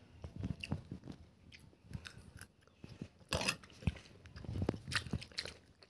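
Chewing close to the microphone: scattered soft crunches and mouth clicks as food is eaten.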